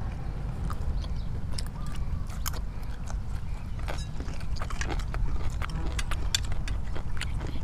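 Irregular light clicks and taps of spoons against plates and bowls during a meal, with some chewing, over a steady low rumble.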